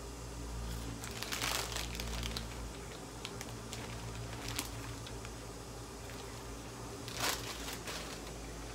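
Packaging crinkling as it is handled, in a few scattered bursts with a sharper one near the end, over a steady low hum.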